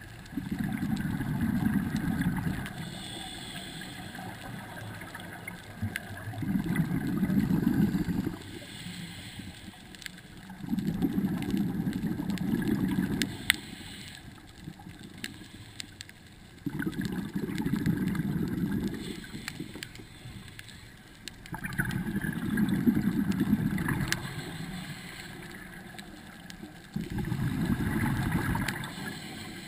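Scuba regulator breathing heard underwater: six slow breaths, each an exhalation of bubbles gurgling for two to three seconds, about every five seconds, with the quieter hiss of inhaling through the regulator in between.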